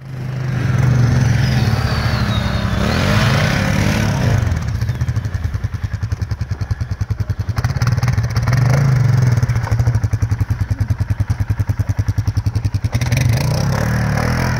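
ATV engine running under load in deep snow, revving up about three seconds in. Through the middle it has a fast, even throbbing pulse, which smooths out near the end.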